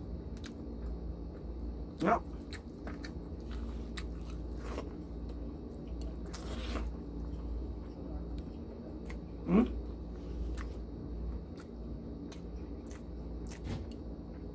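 A person chewing a mouthful of rice and canned tuna with wet mouth clicks and smacking throughout. Two short, loud sounds with a sliding pitch come about two seconds in and again about nine and a half seconds in.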